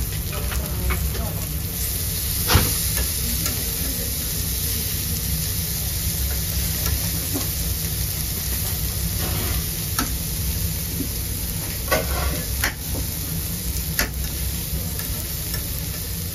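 Fish fillets sizzling steadily on a hot metal grill grate, with a few sharp clicks and scrapes of metal tongs against the grate. A steady low hum runs underneath.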